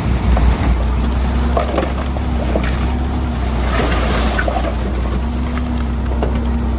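Diesel engine of heavy earthmoving equipment running steadily, with scattered knocks and rattles over a constant low hum.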